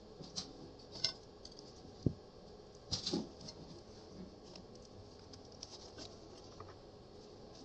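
Scattered small clicks and taps of a mini sewing machine's parts being handled and fitted. The louder knocks come about one, two and three seconds in, followed by fainter ticks.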